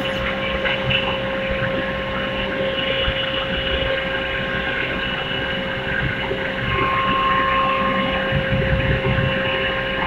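Steady electrical tone of a running induction melting furnace over a constant industrial hum. A higher tone joins in for about a second, roughly seven seconds in.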